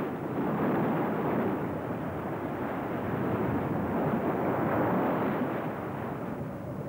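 Floodwater pouring over the crest of an unfinished dam in a huge torrent: a steady, heavy rushing of water.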